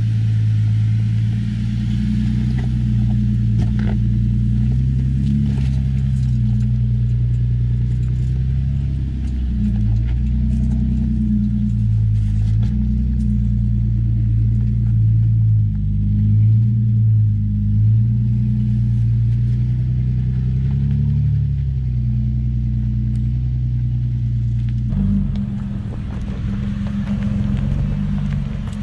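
Toyota 4Runner's 4.0-litre V6 engine running at steady low revs, its pitch shifting slightly now and then. The sound changes abruptly about 25 seconds in.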